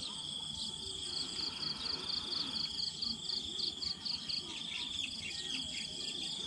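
Insects calling: a steady high-pitched trill with a rapid pulsing chirp, about three to four pulses a second, sounding over it.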